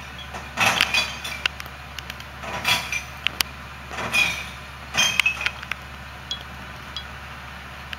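Recyclables clattering and clinking as a curbside recycling bin is shaken out into the side-loading hopper of a Labrie Top Select recycling truck, in about four bursts with sharp clinks between them, over the truck's idling engine. The clatter thins to a few scattered ticks near the end.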